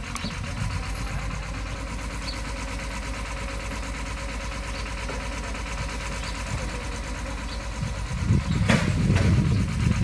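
Engine of a truck-mounted borewell drilling rig running steadily with a fast low throb. About eight seconds in it grows louder and rougher, and a sharp knock follows.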